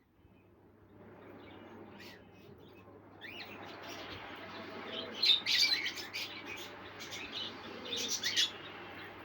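Small birds chirping in short, high bursts, loudest about halfway through and again near the end, over a steady background hiss.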